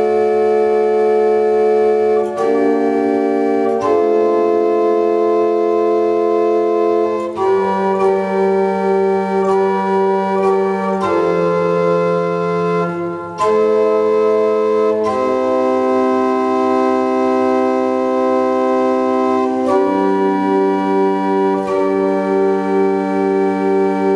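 Organ playing slow, sustained chords that change every few seconds, with brief breaks between phrases.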